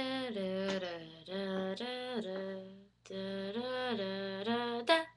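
A young woman's voice humming a slow, wordless tune in long held notes, in three short phrases with brief breaks, ending in a quick upward slide.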